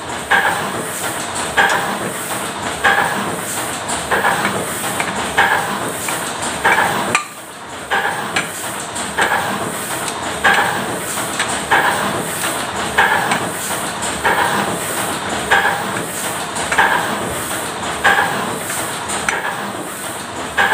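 A machine running with a steady hiss and a regular metallic clank about once every 1.3 seconds. The noise drops briefly about seven seconds in, then goes on.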